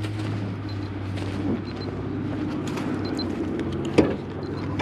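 Ford pickup running with a steady low hum, and a single sharp thunk about four seconds in as the hood latch is popped.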